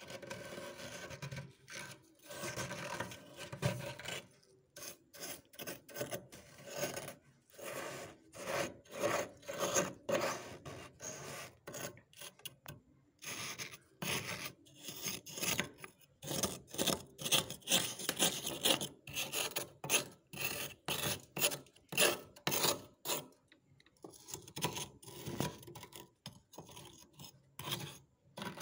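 Thick freezer frost being scraped with a small hand tool: a gritty scraping in repeated strokes, one to two a second, with short pauses about halfway through and near the end.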